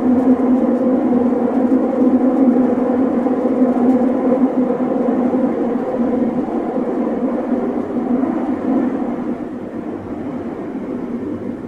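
Kyoto Municipal Subway 20 series train running through the tunnel, heard from inside the car: a steady rumble with a low hum that grows gradually quieter over the last few seconds.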